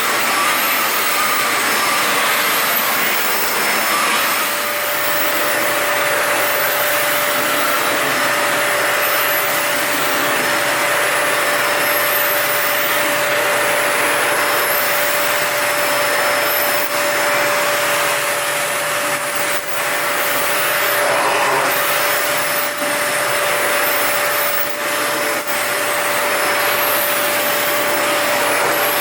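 Toshiba VC-S960 vacuum cleaner running steadily while vacuuming: a continuous rush of air with a steady hum, and a few brief dips in loudness in the second half.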